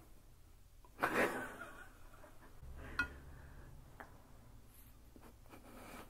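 A short, breathy burst of stifled laughter about a second in, then a single sharp pop about three seconds in, with a few faint ticks after it over a low hum.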